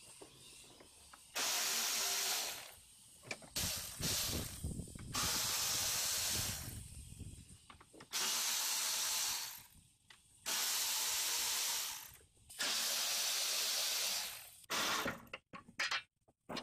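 Milwaukee M12 Fuel 3/8" cordless ratchet whirring in five short runs of a second or two each, with brief blips between, as it turns bolts on the condenser bracket.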